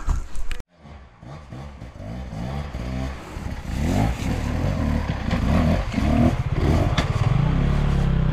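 Hard enduro dirt bike engine revving in repeated rising and falling blips that grow louder, then held at a steady high rev near the end. The sound cuts out abruptly less than a second in, before the engine comes in.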